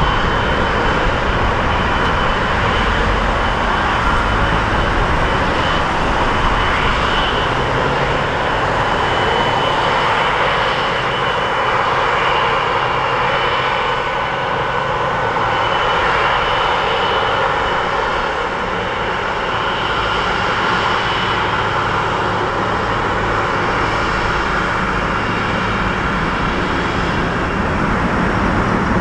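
Boeing 777-200ER's twin jet engines running at taxi power as the airliner taxis past: a steady rushing noise with a thin high whine over it.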